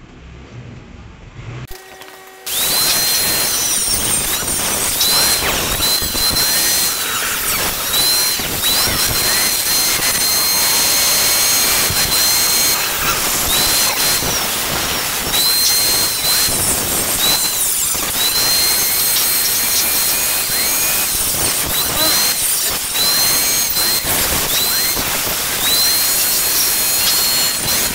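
Angle grinder with a thin cut-off disc cutting notches into 0.75 mm galvanized light-steel channel, starting about two and a half seconds in. Its high whine repeatedly dips and recovers as the disc works through the metal.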